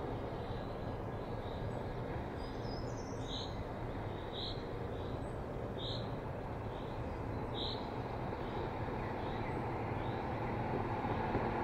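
A bird repeating a short chirp about once a second over the low rumble of a Mercedes fire truck's engine as it drives closer, the rumble growing louder near the end.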